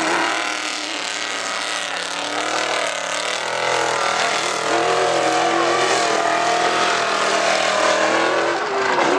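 Off-road race truck's engine revving hard as it powers through sand, its note rising and falling with the throttle.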